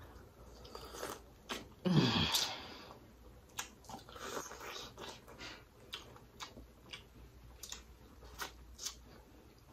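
Person biting and chewing corn on the cob, with crisp kernel-crunching clicks scattered throughout and a short, louder mouth noise about two seconds in.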